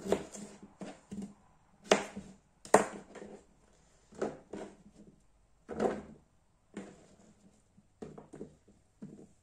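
Irregular knocks and taps of kitchen utensils and food-preparation gear being handled on a countertop, with the two loudest knocks about two and three seconds in.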